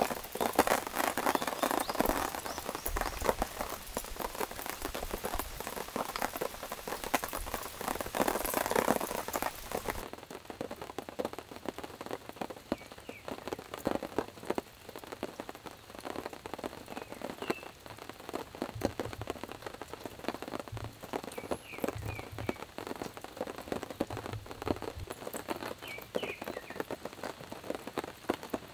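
Rain falling in a dense patter of many small drops. About ten seconds in it becomes softer, with less hiss, and the patter goes on at that level.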